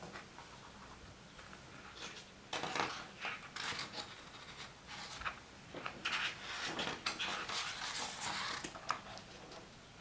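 A picture book being handled: the cover opened and paper pages rustling and turning, with small taps and clicks, from about two and a half seconds in until shortly before the end.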